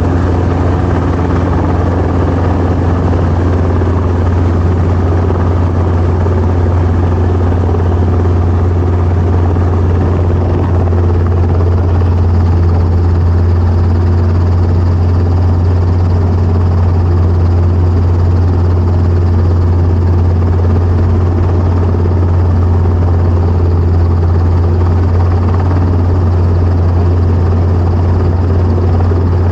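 Training helicopter running steadily: a constant low rotor and engine drone with an even noise above it, without change in pitch or level.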